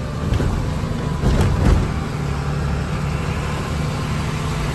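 Truck engine running steadily as the truck drives slowly, with a few knocks or rattles about a second and a half in.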